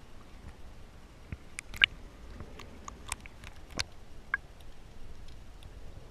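Irregular sharp clicks and pops heard underwater over a coral reef, a handful in all, the loudest about two seconds in, over a low rumble of moving water.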